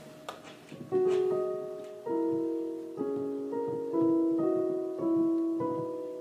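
Background piano music: soft chords and melody notes, each struck and then fading, starting about a second in and coming roughly once a second.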